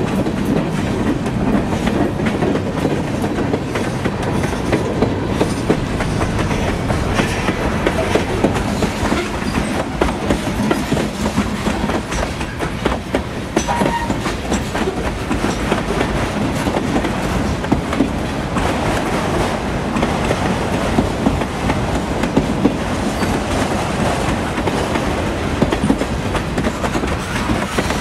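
Freight cars of a passing train rolling by close up: a steady rumble of steel wheels on rail with a continual clickety-clack as the trucks cross rail joints.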